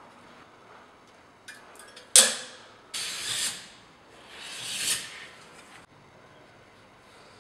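A hand staple gun fires once with a sharp, loud snap about two seconds in, after a few light clicks, as PVC chamfer bead is stapled to plasterboard. It is followed by two longer stretches of scratchy rubbing noise from handling the beads.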